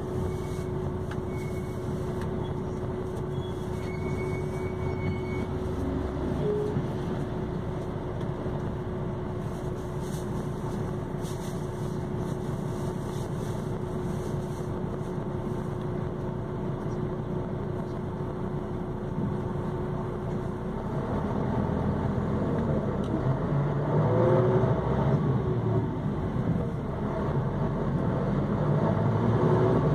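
Mercedes-Benz OH-1628L bus's diesel engine running steadily with a thin steady whine over its drone. About two-thirds of the way in it grows louder and deeper, with the pitch shifting as the engine works harder.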